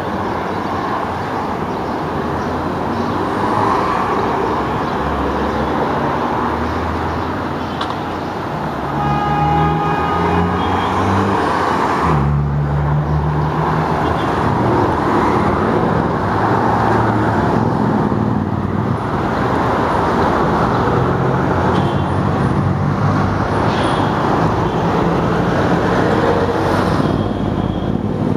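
Street traffic noise: cars and engines running steadily, with a short pitched tone about ten seconds in.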